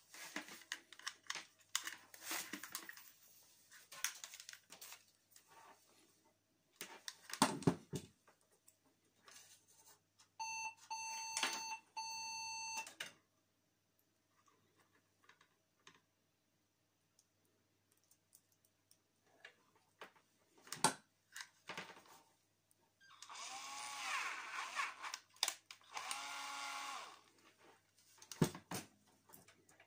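Clicks and rattles as plastic connectors and wires are handled. An electronic beep holds steady for about two and a half seconds, and near the end a cordless drill powered from a computer power supply whirs in two short bursts.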